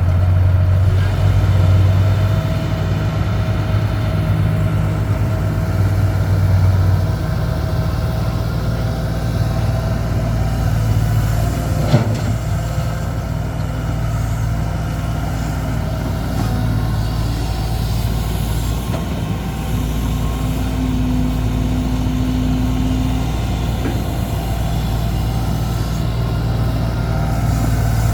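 Heavy diesel engine running steadily at an even low pitch, with a single sharp knock about twelve seconds in.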